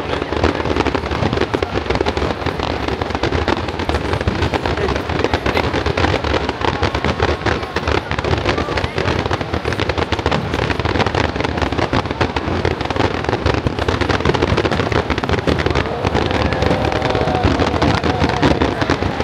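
Display fireworks bursting in a dense, unbroken barrage of bangs and crackles.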